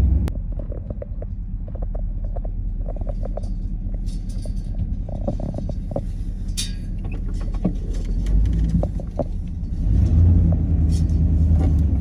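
Vehicle engine running with a steady low rumble, with scattered clicks and rattles from the moving vehicle; the engine grows louder over the last few seconds.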